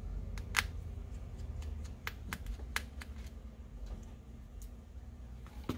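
Precision screwdriver working tiny screws out of a Google Pixel 1 phone's midframe: scattered light clicks and ticks as the tip seats in and turns the screws. A low steady hum runs beneath.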